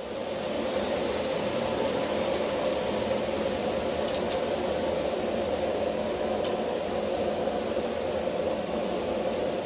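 A steady machine-like drone with a hum in it, holding level throughout. Two faint metallic clicks come about four and six and a half seconds in as the adjustable wrench works the hot wrench ring clamped in the vise.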